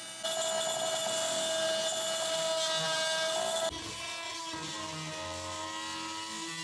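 Oscillating multi-tool running as it cuts, a steady whining buzz; after about three and a half seconds it turns quieter and lower-pitched.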